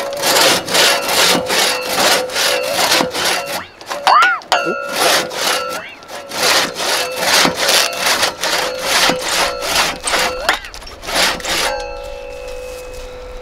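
Big Tigersvans hand saw cutting through dry dead wood, with rapid back-and-forth strokes at about two a second. The blade twangs with a wavering pitch about four seconds in. The strokes stop about twelve seconds in, leaving a steady ringing tone.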